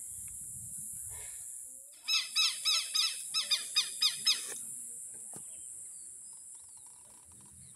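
A bird calls a rapid series of about ten arching notes, starting about two seconds in and lasting about two and a half seconds. Under it runs a steady high-pitched insect drone.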